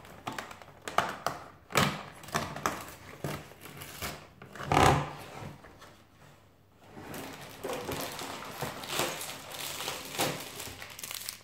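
A cardboard advent calendar door being pried and torn open by hand: scattered clicks, scrapes and rustles of card, with the loudest knock about five seconds in.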